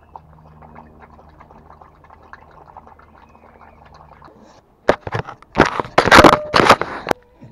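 A dog nosing right up against the camera: from about five seconds in, loud close-up sniffing and rubbing on the microphone. Before that, only faint scattered clicks and scuffles from dogs moving about.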